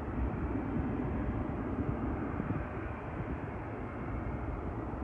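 Boeing 737-800's jet engines heard from far across the airfield on its takeoff run: a steady, low rushing noise.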